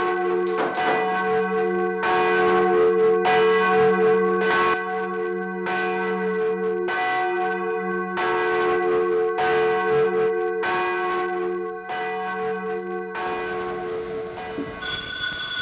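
A single church bell tolling in its belfry, struck steadily about once every second and a bit, each stroke ringing on over the last. The tolling stops shortly before the end.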